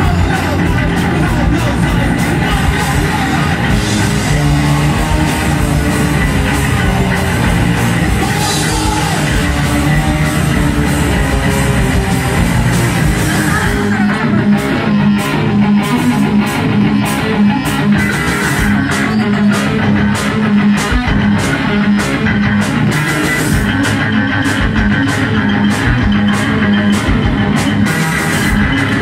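Live rock band playing loud: electric guitar and bass guitar over a drum kit. About halfway through, the drums settle into a steady beat of about two hits a second.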